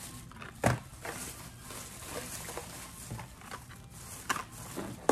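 Thin plastic bag rustling and crinkling as it is handled, with scattered sharper clicks, the loudest about two-thirds of a second in.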